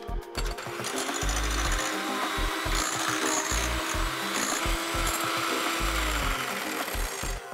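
Electric hand mixer running steadily, its twin beaters whipping egg whites into a froth in a glass bowl; the motor starts about a second in and stops near the end.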